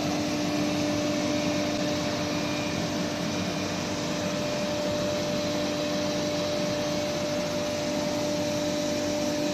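CNC woodworking router running steadily: a constant machine whine and hum over a even rushing noise, with no change in pitch or level.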